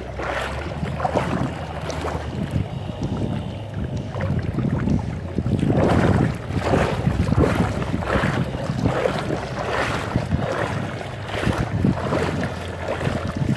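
Wind rumbling on the microphone, with water swishing and splashing in irregular rushes as someone wades through shallow sea water.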